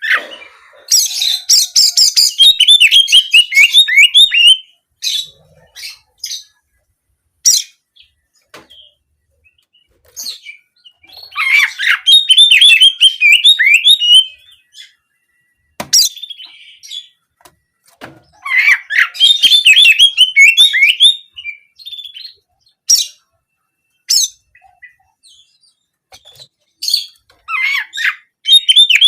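A songbird singing in three long bursts of fast, high trilling phrases, in the rapid canary-like 'nembak' style, with short single chirps between the bursts.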